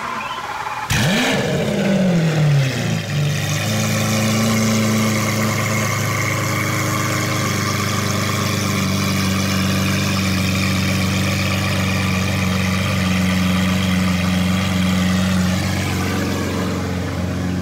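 Lamborghini Aventador SV's V12, running straight-piped through bare headers, flares sharply about a second in. Its pitch then slides down over a couple of seconds and settles into a steady, smooth high idle.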